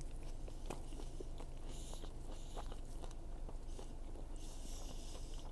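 A person chewing a mouthful of burger with the mouth closed: many small wet clicks, with two short hissy breaths, about two seconds in and near the end, over a steady low hum.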